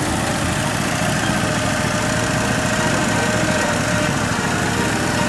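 Small engine of a ride-on miniature diesel-style locomotive running steadily as it pulls a train of riders along the track.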